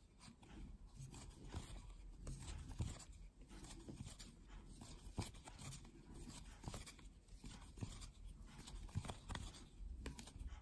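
Faint, irregular scratching and rubbing of a metal crochet hook drawing yarn through single crochet stitches, with small clicks as the hook catches the stitches.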